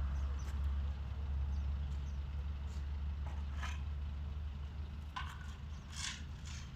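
Low engine rumble of a vehicle, slowly fading as it moves away, with a few short scraping crunches.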